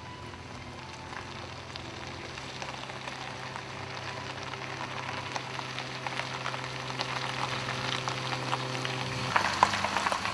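A car approaching on a wet road: a steady engine hum under the hiss of tyres on wet tarmac, growing louder. About nine seconds in the engine note drops as the car slows and pulls up, followed by a few sharp clicks.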